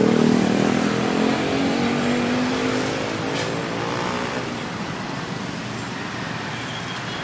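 A motor vehicle's engine passing close by on a busy road, loudest at the start and fading over a few seconds into steady traffic noise.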